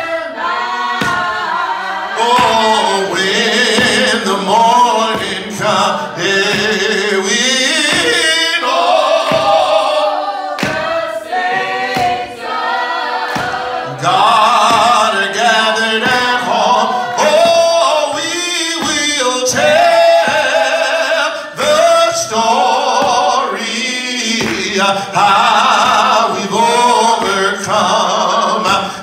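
A man singing a gospel song into a microphone, holding long notes and sliding between pitches, with short breaks for breath.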